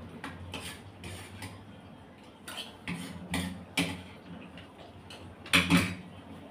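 Spoon clinking and scraping against a bowl of rice during eating, with a string of short sharp clicks at irregular intervals. The loudest cluster comes about five and a half seconds in.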